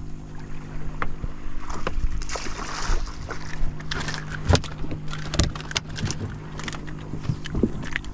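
A speckled trout splashes at the surface as it is reeled in, then knocks and thumps sharply as it is swung aboard and flops on the boat's deck. A steady motor hum runs underneath.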